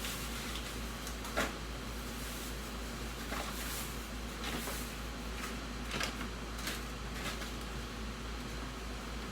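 A few scattered household knocks and clicks, the sharpest about a second and a half in, over a steady background hiss.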